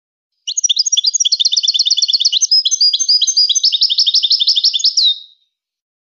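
European goldfinch singing one continuous phrase of rapid twittering notes, about eight a second, high-pitched and bright, ending in a falling note. It starts about half a second in and stops abruptly after about five seconds.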